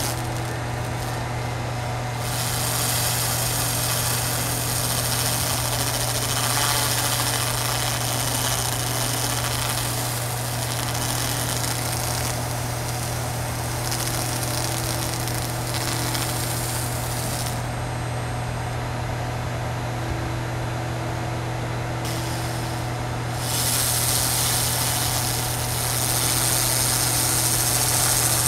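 Handheld laser cleaner working rust off a steel chisel blade: a steady hum from the laser unit under a hiss from the beam striking the metal. The hiss drops away for several seconds past the middle and then comes back.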